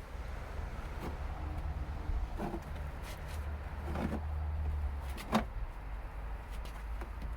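Plastic wheel arch liner being tugged and flexed, with a few knocks and scrapes and one sharper knock about five seconds in; it won't come free because one fastener is still holding it.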